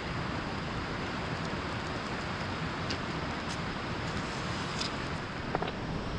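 Wood campfire crackling, with a few sharp pops scattered over a steady rushing noise.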